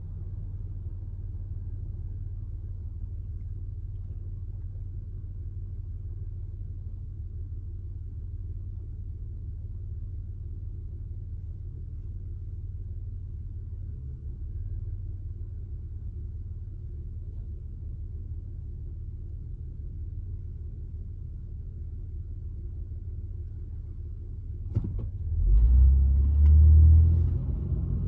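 Low, steady rumble of a car idling at a stop, heard from inside the cabin. About 25 seconds in there is a brief click, then the rumble grows much louder as the car pulls away.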